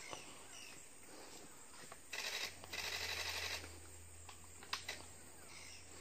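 Camera shutters firing in rapid bursts, two runs of fast clicking close together around the middle, with a few single shutter clicks. Faint bird chirps sound behind them.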